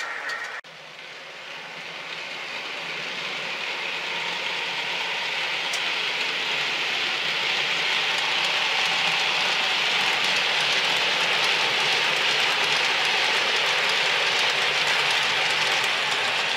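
OO gauge model diesel locomotive and container wagons running along the track, the wheels rattling over the rails. The sound grows steadily louder over the first several seconds as the train draws near, then holds steady.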